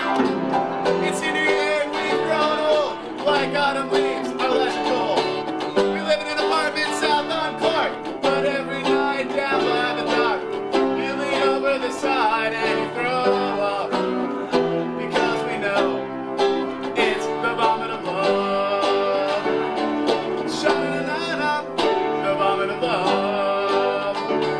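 An upright piano and a plucked long-necked lute-type string instrument playing a tune together, with continuous notes.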